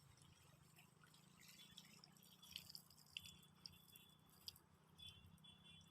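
Near silence, with faint scattered clicks and a few faint, brief high-pitched chirps.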